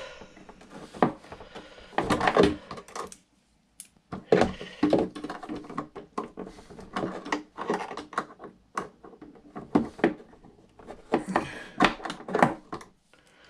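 Irregular clicks, taps and light scrapes of small metal tools and parts being handled against the hardware and plastic hull of an RC boat, coming in clusters with a short pause about three seconds in.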